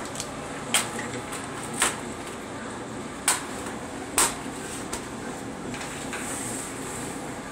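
Light hammer taps: four sharp knocks about a second apart, then a fainter one, over a steady low hum.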